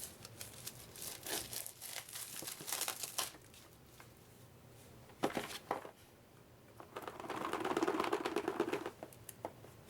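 A cardboard board game box being handled and opened: a rapid run of clicks and crinkles, a couple of sharper knocks about five seconds in, then a longer rubbing, sliding sound of cardboard on cardboard from about seven to nine seconds in.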